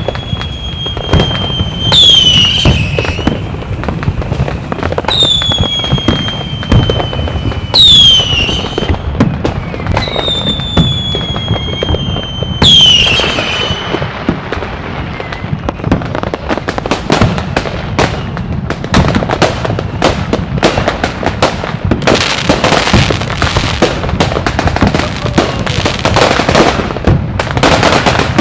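Fireworks: whistling rockets, each a high whistle falling slowly in pitch and ending in a loud bang, about four in the first half. Then a dense, rapid crackling and popping of many small bursts.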